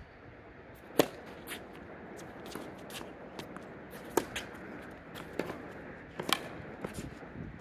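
Tennis rally on a hard court: sharp pops of racket strings hitting the ball, the loudest about a second in, then again after about four and six seconds. Fainter clicks of far-court hits, ball bounces and shoe scuffs come in between.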